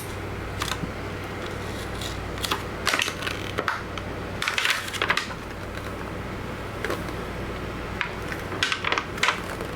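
Stock anti-glare screen protector film being peeled off a tablet's glass screen, its adhesive letting go in scattered crackles and short ripping pops, heaviest around the middle and near the end, over a steady low hum.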